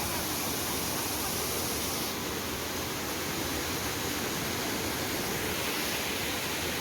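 Sanaghagara waterfall's water falling and splashing in a steady, continuous rush.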